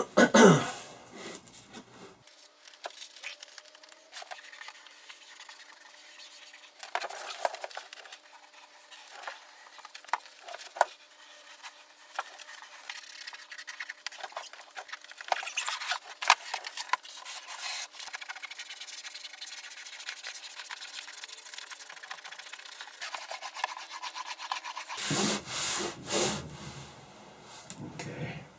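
Leatherette being pressed and rubbed down onto a wooden tool chest by hand: irregular rubbing and scraping strokes with small taps, louder about a second in and again near the end.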